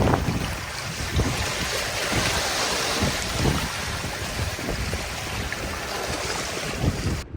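Water washing and surging, with gusts of wind buffeting the microphone. The sound swells a couple of seconds in and cuts off abruptly near the end.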